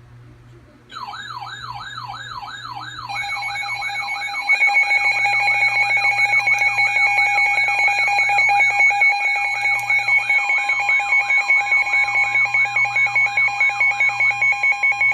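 Electronic emergency alert alarm. A warbling tone sweeps up and down about three times a second, starting about a second in. Steady tones join it at about three and four and a half seconds in, pulsing with the warble, and another steady tone joins about ten seconds in.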